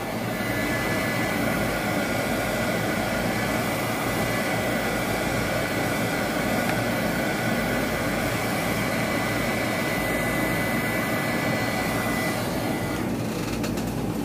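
Handheld craft heat gun running steadily, its fan blowing hot air to dry fresh paint, with a thin steady whine over the rush of air; it cuts off about a second before the end.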